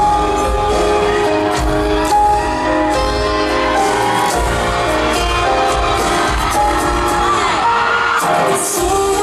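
Pop music with a steady beat and held melodic notes, with some singing.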